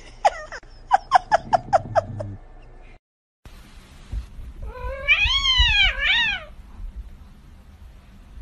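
A cat giving a quick run of short, sharp meows, about six in a second. After a short break, a kitten gives one long wavering meow that rises and falls twice.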